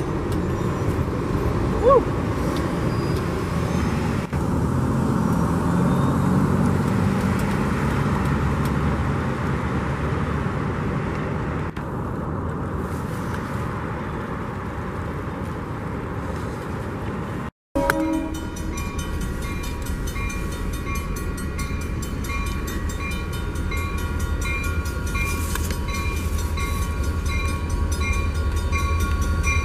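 A train rolls past close by at a gated grade crossing. After a cut, a grade-crossing bell rings steadily over a low rumble as a locomotive approaches, and its horn starts right at the end.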